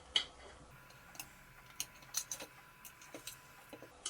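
Light, irregular clicks and taps of a kitchen knife against a cutting board while an octopus is being cut and cleaned. The sharpest tap comes just after the start.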